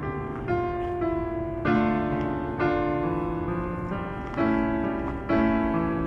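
Background piano music: a slow, gentle melody over held chords, with a new note or chord about once a second.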